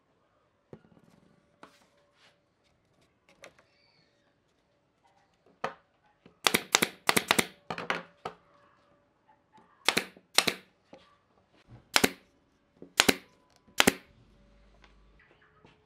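Pneumatic nail gun firing into a stack of glued wooden strips: a quick run of about five sharp shots, then single shots about a second apart. Before the shots, light knocks of a wooden strip being laid down and handled on the bench.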